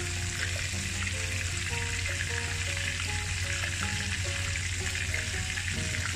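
Potato-chip-coated chicken pieces frying in a pan of hot oil, a steady, even sizzle. Background music with a simple melody plays under it.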